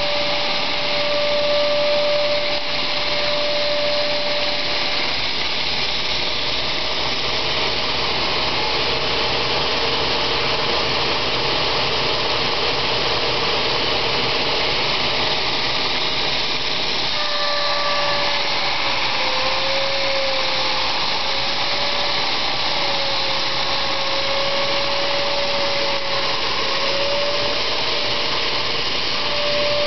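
Belt grinder with a coarse 50-grit belt running steadily, with a forged steel katana blade ground against the belt at times. A steady grinding hiss lies over the machine's hum, and the hum's pitch wavers lower in the second half.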